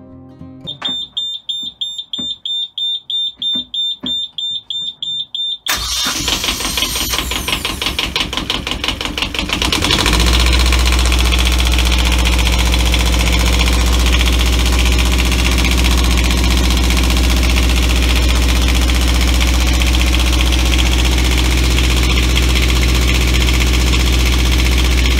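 An engine warning buzzer beeps in quick pulses, about three or four a second, for roughly five seconds. Then the starter cranks the Beta Marine inboard diesel, which catches about ten seconds in and runs steadily with a deep, even hum.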